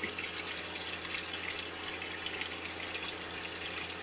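Water running and splashing steadily, over a low steady hum.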